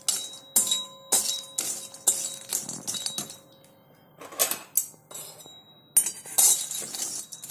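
Metal spatula scraping and clinking against an iron kadhai as broken cinnamon sticks are stirred while dry-roasting. The strokes come in an irregular string, pausing briefly a little past the middle.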